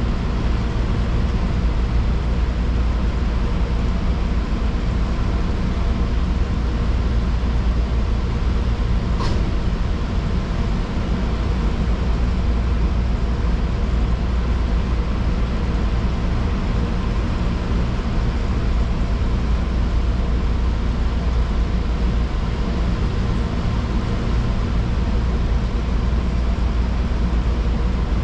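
Fujikyuko Line electric train running, a steady rumble of wheels and motors heard from inside the car, with one short click about nine seconds in.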